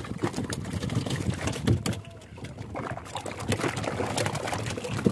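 Freshly caught fish flapping and slapping against one another in a boat's hold: irregular wet slaps and knocks.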